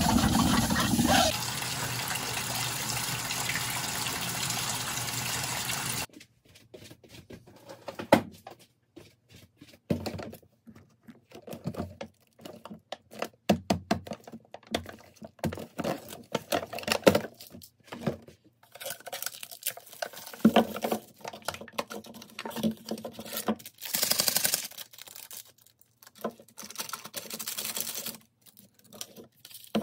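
Kitchen tap running onto a dish as hands rub it clean, which stops abruptly about six seconds in. Then intermittent crinkling of plastic wrap and cardboard packaging from a multipack of Shin Ramyun cup noodles being opened, with a few sharp knocks and a burst of tearing-plastic crackle, and a cup's foil-paper lid being peeled back near the end.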